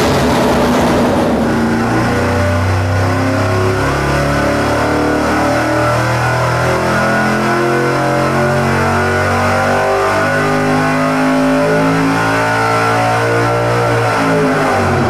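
Carbureted V8 on an engine dyno making a wide-open-throttle power pull with a larger camshaft (242/250 degrees duration at .050, .558 in lift), loud and steady as engine speed climbs past 6,000 rpm, then dropping off right at the end as the pull finishes.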